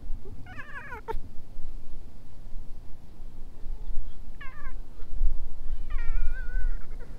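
Old ginger-and-white cat meowing three times: a falling meow about half a second in, a short one just after four seconds, and a longer, steadier one near the end, over a low rumble on the microphone.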